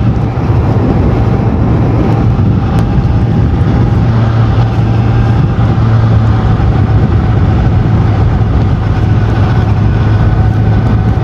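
Honda CBR1000RR's inline-four engine running at a steady cruising speed, its note held at one pitch and muted by the stock exhaust, under a constant rush of wind and road noise.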